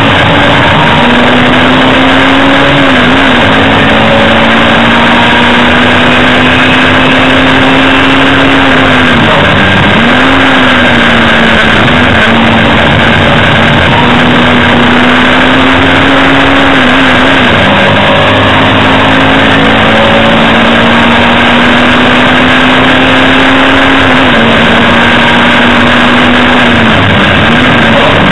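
Hillman Imp race car's rear-mounted four-cylinder engine heard from inside the cabin, running hard at high revs and very loud. Its note mostly holds steady, dipping briefly and climbing back about five times through the corners.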